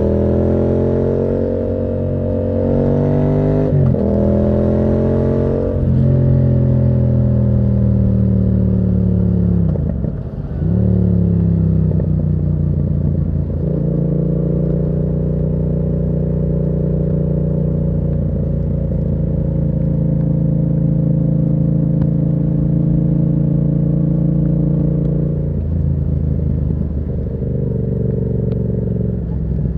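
Yamaha MT-07's parallel-twin engine through a Termignoni exhaust. Revs climb over the first few seconds and drop sharply with a shift, fall away to a low point about ten seconds in, pick up again, then hold steady, stepping down once more near the end.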